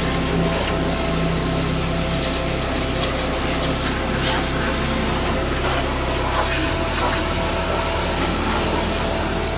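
Pressure washer spraying a jet of water over a pickup's engine bay: a steady hiss of spray over the steady low hum of the washer's pump motor, which changes about seven seconds in.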